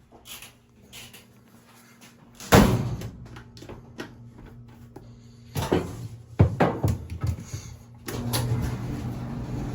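Knocks and clacks of a clothes dryer's panels and parts being handled and fitted back together, the loudest about two and a half seconds in and a quick run of them past the middle. A steady hum starts near the end.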